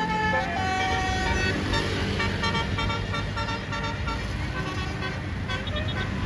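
Tour bus's basuri telolet horn playing a melody of pitched notes, with a quick run of short notes near the end, over the low rumble of the bus engine and passing traffic.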